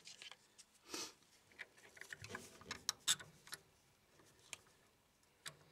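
Scattered small metallic clicks, taps and scrapes as the strainer cover and its screws are fitted back onto an oil burner's fuel pump by hand.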